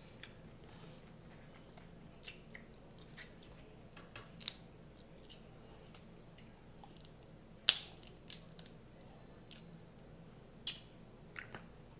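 Snow crab leg shells cracking and snapping as they are broken apart by hand: scattered sharp cracks, the loudest about two-thirds of the way through.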